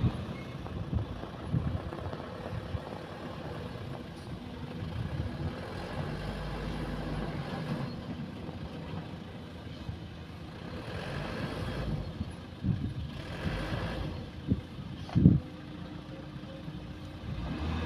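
Diesel engines of excavators and dump trucks running at a distance in a quarry pit, a steady low hum, with a few dull thumps, the loudest about three-quarters of the way through.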